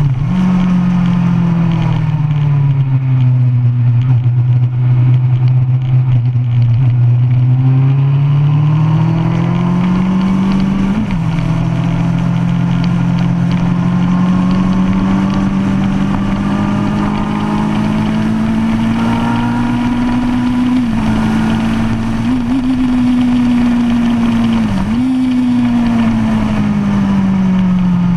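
2005 Kawasaki ZX-10R's inline-four engine through a DanMoto racing exhaust, run hard on track: the note falls early on, climbs steadily, breaks sharply for a moment about 11, 21, 22 and 25 seconds in, then falls away near the end as the bike slows. Wind rushes over the microphone throughout.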